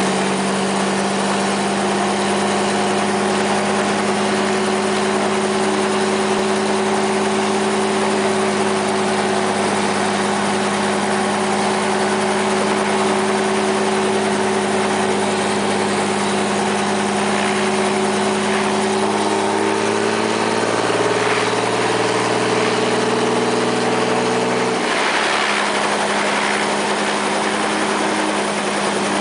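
Robinson R44 helicopter's piston engine idling with the main rotor turning slowly, a steady engine hum. About twenty seconds in the engine note rises and shifts, then settles back about five seconds later.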